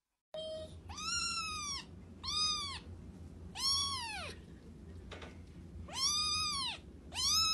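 Grey kitten meowing, five high calls in a row, each rising then falling in pitch, over a steady low hum.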